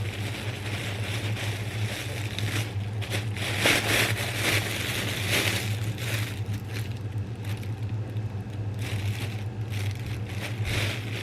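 Plastic food packaging rustling and scraping as a boxed meal is unpacked, loudest for a few seconds in the middle and again briefly near the end, over a steady low hum.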